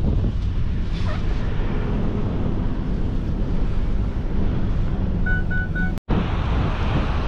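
Vehicle driving slowly over beach sand with the window open: a steady low rumble with wind buffeting the microphone. Three short, evenly spaced beeps sound near the end, just before a brief dropout at a cut, after which the wind noise goes on.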